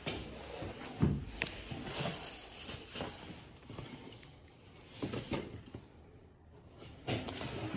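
Handling noise: a few scattered knocks and rustles as a flat wooden case and a cardboard box are moved about on a mattress.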